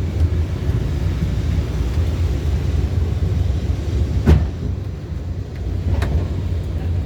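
Lisbon tram rumbling along, with a sharp clunk about four seconds in and a lighter knock near the end.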